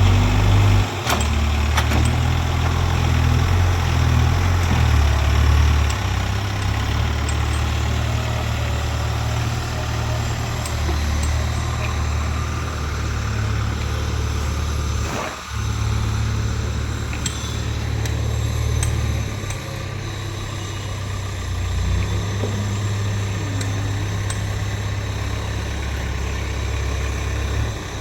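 Heavy diesel engines of earthmoving machinery running steadily. The engine note shifts up and down in level a few times, with a brief drop about halfway through.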